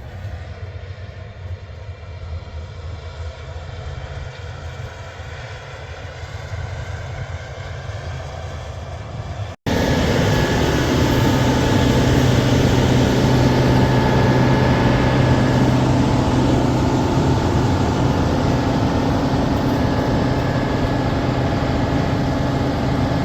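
Heavy engine running steadily. About ten seconds in, the sound cuts abruptly to a louder, closer engine drone with a steady low hum.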